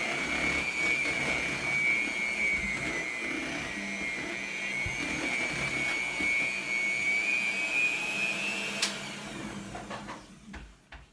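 A household appliance motor running steadily with a high whine. It is switched off about nine seconds in and winds down.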